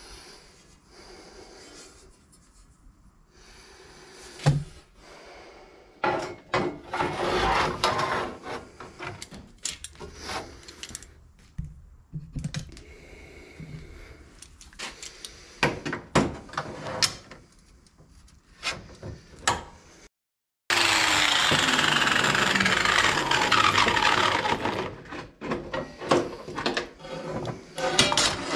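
A cast iron griddle being handled on a steel workbench: scraping, rubbing and metal knocks and clanks, with one sharp thump about four seconds in. After a short cut, a loud steady mechanical noise with a falling whine runs for about four seconds before the clanks resume.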